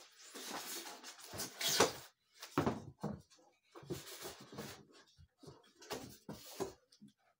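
Cardboard box and packing material being handled while a scooter is unpacked: irregular rustling, scraping and knocks, with the sharpest knocks about two seconds in.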